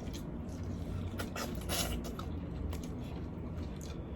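Scattered crackling and clicking of boiled seafood shells being cracked and peeled by hand.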